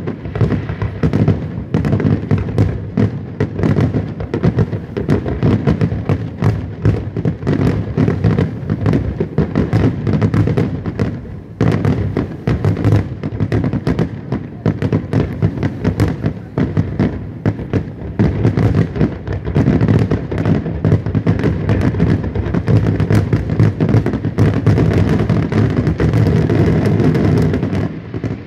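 Aerial firework shells bursting in a dense, rapid barrage of bangs, nearly continuous, with a brief lull about twelve seconds in.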